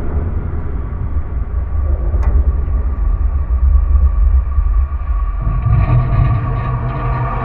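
Iron and steel bridge structure vibrating under passing traffic, picked up by a contact microphone: a deep, steady rumble with one sharp tick about two seconds in. About five and a half seconds in, the sound switches abruptly to a higher hum with ringing metallic tones.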